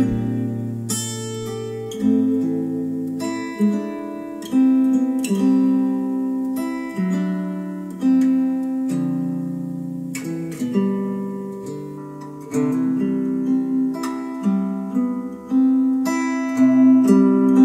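Acoustic guitar music, chords struck about every one to two seconds and left to ring out, played back through a pair of hi-fi bookshelf speakers.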